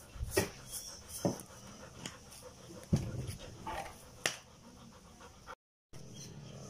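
Soft grass broom swept across the floor in quick strokes, each a brushy swish. There is a short break in the sound a little before the end.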